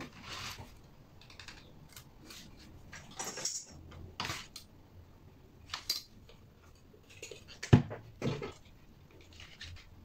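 Handling noises: short rustles, light scrapes and small clicks as wires and multimeter test leads are picked up and connected, with one sharp knock about three-quarters of the way through.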